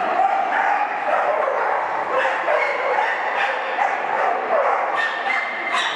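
A dog barking and yipping in a rapid, almost unbroken series of short high calls.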